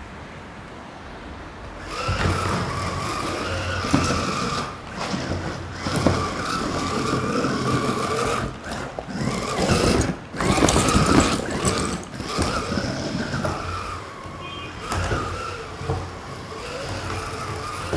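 Small geared DC motors of a homemade tracked RC car running, with a wavering whine over gear and track rattle. It starts about two seconds in and stops and restarts several times as the car is driven.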